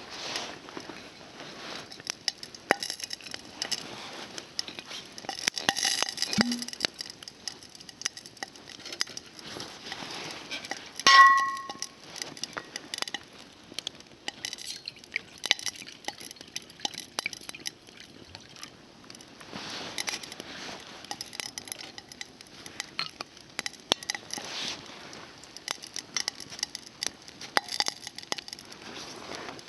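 Campfire crackling and popping, with small clinks of cooking utensils. About eleven seconds in comes one loud, ringing metallic clink.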